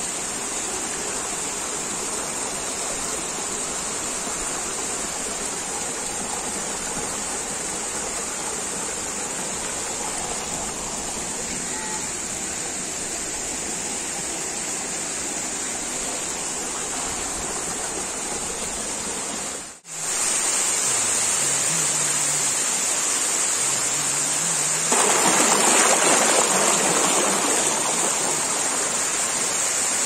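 Waterfall in heavy rainy-season flow: a steady rush of falling water. It cuts out for an instant about two-thirds through, then comes back and grows louder near the end.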